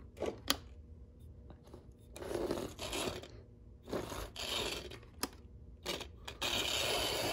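Small electric motor of a Tri-Ang Davy Crockett model locomotive starting in short, uneven spurts as it is nudged along the track, with scrapes and clicks from its wheels on the rails; in the last second it runs steadily.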